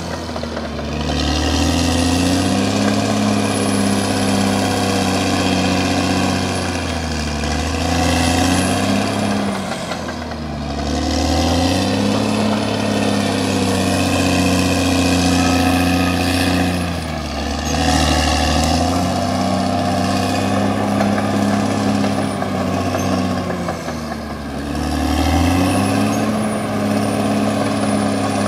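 Caterpillar D6R XL bulldozer's diesel engine working steadily, its revs dipping and climbing back four times, about every 7 to 8 seconds, with a thin high whine above the engine note.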